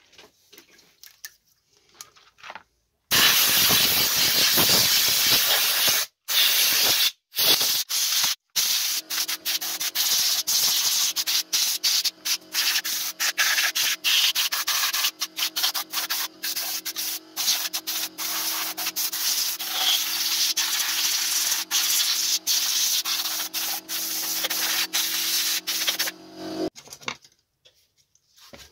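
Abrasive rubbing on an engine part, like sanding or scrubbing off old finish: a harsh, continuous scraping that starts about three seconds in and is broken by brief gaps. From about nine seconds in a steady low hum runs underneath, and it all stops shortly before the end.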